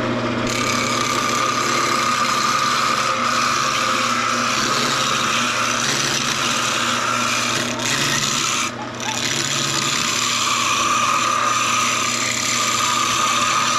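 Wood lathe running with a skew chisel cutting into a spinning square of pine: a steady motor hum under a continuous hiss of the cut. The cutting noise drops away for a moment about nine seconds in, then resumes.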